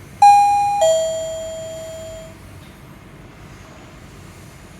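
Costar T310 wireless doorbell receiver sounding its two-note ding-dong chime: a higher note, then a lower one that rings away over about a second and a half. The chime answers a press of the push button, showing that the button is paired again after a reset.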